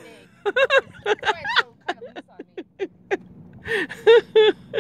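A woman talking in short bursts of speech that the recogniser did not write down, over a faint steady low hum.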